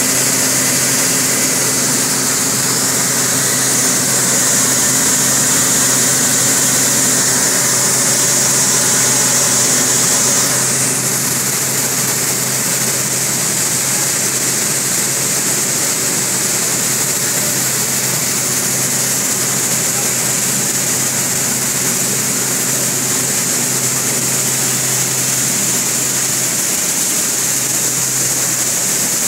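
Five-fan gravity separator running: steady rush of fan air over a low motor hum, dipping slightly about ten seconds in.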